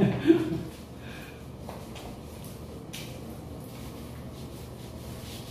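Hands rubbing soap lather over wet skin: soft, faint scattered rubbing and brushing sounds, after a brief word from a man's voice at the very start.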